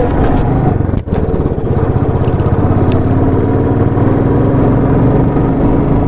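Motorcycle engine running steadily while riding, heard from on the bike, with a brief drop in sound about a second in.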